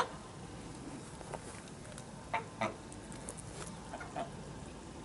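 Domestic geese giving a few short, soft calls, the two clearest close together a little past two seconds in.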